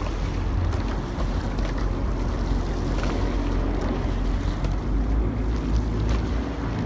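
Steady low rumble of a motorboat under way, with wind buffeting the microphone and water washing past the hull.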